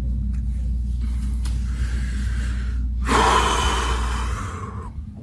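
A man breathing heavily while crying: a faint sniff, then a long, loud exhale about three seconds in, over a steady low rumble of phone-microphone noise.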